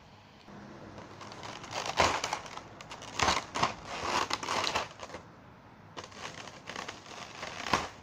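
Clear plastic blister packaging being handled, crinkling and crackling in irregular bursts, with a sharp crackle near the end.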